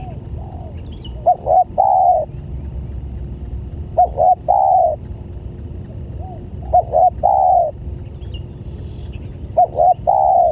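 Spotted dove (tekukur) cooing: a repeated phrase of two short coos and a longer coo, four times, about every three seconds.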